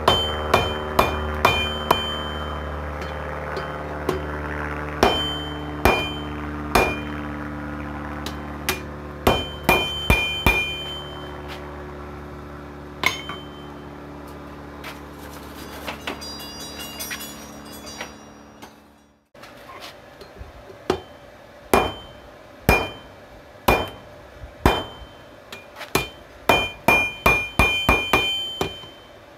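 Hand hammer striking hot steel on a 66 lb anvil in irregular runs of blows, each blow leaving a short high ring from the anvil. A steady low hum underneath stops suddenly about two-thirds of the way through.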